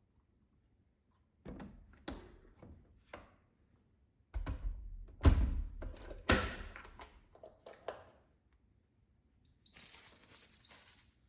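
Knocks and clatters of kitchen things being handled and set down, the two loudest thuds close together midway. Near the end comes a short hiss with a faint high tone in it.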